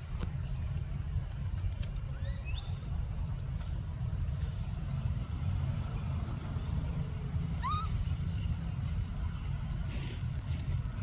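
Short, high, rising animal squeaks or chirps, a dozen or so scattered through, one lower and stronger about two thirds of the way in, over a steady low rumble.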